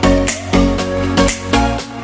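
Background music, electronic, with a steady beat and heavy bass.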